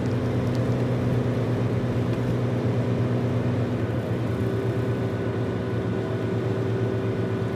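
Motorhome engine and tyre noise heard from inside the cab while driving at a steady speed. The hum changes note about four seconds in.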